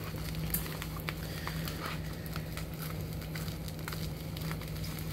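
Bubble wrap crinkling and crackling as fingers pick and pull at the packing tape wrapped around it, with scattered small sharp crackles and a steady low hum underneath.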